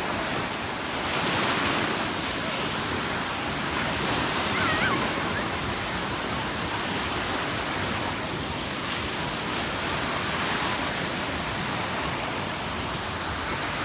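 Sea surf breaking and washing up a beach in gentle swells, with faint voices of beachgoers underneath.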